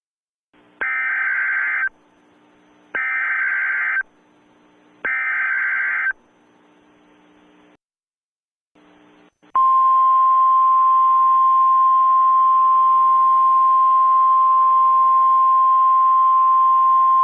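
Emergency Alert System SAME header: three one-second bursts of warbling digital data about a second apart, marking the start of an emergency alert. After a short gap with radio hiss, the steady NOAA Weather Radio 1050 Hz warning alarm tone begins about ten seconds in and holds over faint hiss.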